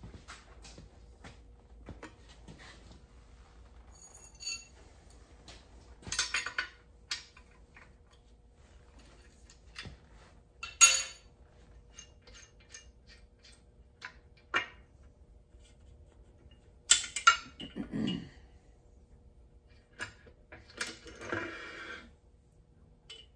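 Steel parts of a portable valve seat cutter clinking and knocking against each other and the engine block as the cutter is handled and lifted off: a scattering of separate metallic clinks, the sharpest about eleven seconds in, a cluster around seventeen to eighteen seconds, and a short rattle near the end.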